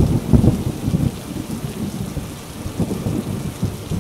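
Thunder rumbling over steady rain, the rumble loudest at first and dying down over the first couple of seconds.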